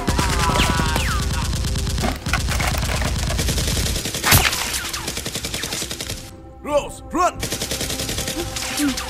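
Rapid automatic gunfire, a continuous rattle of shots, with one sharp louder bang about four seconds in. Brief shouted vocal sounds come near the start and again about seven seconds in.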